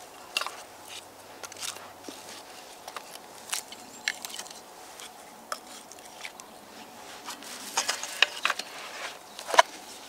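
Whittled wooden stakes pulled from the ground and gathered into a bundle, clacking and knocking against each other in scattered light clicks. A quicker run of knocks comes near the end, the sharpest about half a second before the end.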